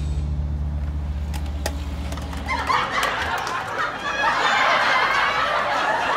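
A low held note ends a little under three seconds in, and a group of people then starts laughing and keeps laughing.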